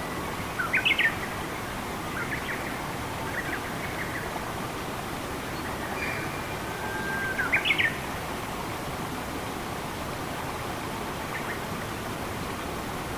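Steady rush of flowing water with a bird calling over it. Two louder calls of quick rising notes come about a second in and near eight seconds in, with a few fainter chirps between.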